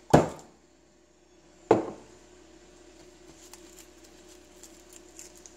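A bottle brought down on garlic cloves on a countertop to smash them: two sharp thuds, one right at the start and one just under two seconds in. Then faint light crackling as the papery skins are picked off the crushed cloves.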